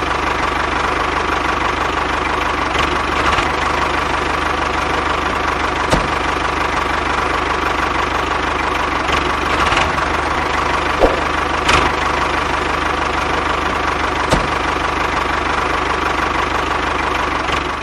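Tractor diesel engine sound running steadily with a knocking beat, with a few faint clicks.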